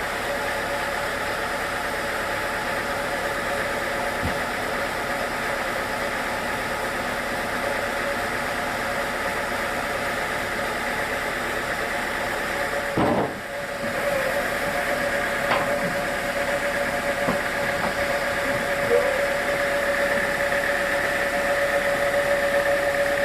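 Sawmill machinery running steadily with a constant mechanical hum, briefly dipping about halfway through.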